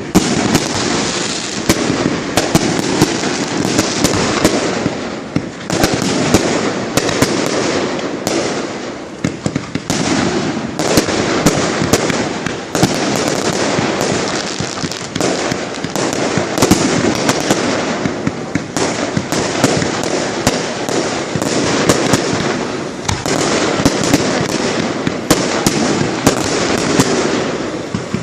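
Fireworks display going off in quick succession: a dense, continuous rumble of bursting shells and crackle, cut through by many sharp bangs, several a second.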